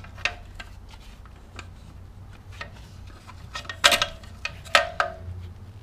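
Light metal clicks and taps of a screwdriver and parts inside the case of a Ford E4OD automatic transmission as the intermediate band is worked loose. Near the end come two louder metal clanks, each with a brief ring.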